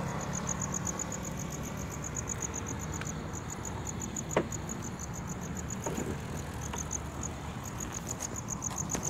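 Crickets chirping in steady high pulses, several a second, over a low rumble. A single sharp click about four seconds in.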